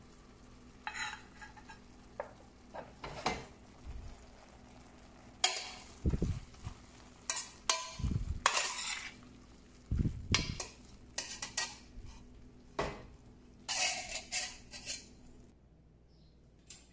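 Metal cooking utensils scraping and clinking against a pan and dishes in irregular strokes, with a few dull knocks, typical of food being spooned out of the pan to serve. The clatter stops about a second before the end.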